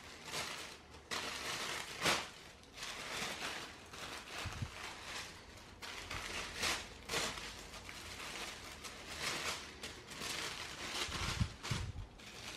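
Thin tissue-paper wrapping rustling and crinkling in irregular bursts as hands unfold it, with a few soft low thumps of handling.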